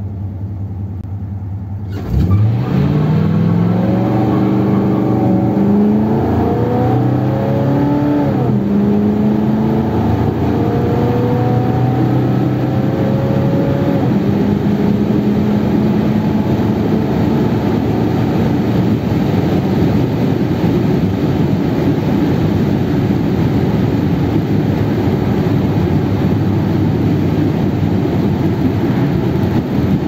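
1957 Ford Thunderbird's Y-block V8 with its four-barrel Holley carburettor, heard from inside the car: idling at first, then given a bootful of throttle about two seconds in. The engine note climbs, drops at a gear change about eight seconds in, climbs again, and settles to a steady cruise with road noise from about fourteen seconds on.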